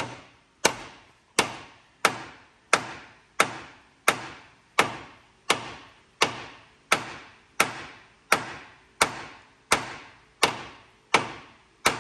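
Steady hammer blows on the steel steering box mount of a square-body truck frame, one strike about every 0.7 s, each ringing briefly. The mount's bent face is being pounded flat so the steering box sits on it without rocking.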